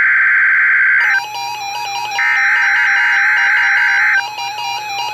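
NOAA Weather Radio SAME header data bursts for a Required Weekly Test: a harsh, buzzy digital screech about two seconds long, then a one-second gap, a second burst, and a third starting at the very end. From about a second in, the receiver's own alert beeps play under it in a stepping, ringtone-like pattern.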